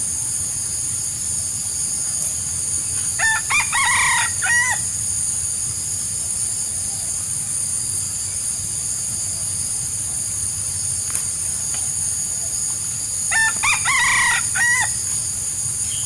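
A wild junglefowl rooster crows twice, about ten seconds apart, each crow about a second and a half long. A steady high hiss runs under both.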